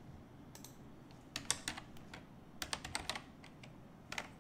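Computer keyboard typing: three short bursts of keystrokes with pauses between.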